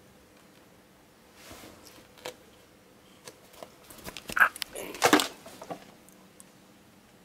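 A cat grabbing and clawing at a hand that was stroking it: a short scuffle of rustling fur and carpet with a cluster of sharp, loud noises about four to five seconds in.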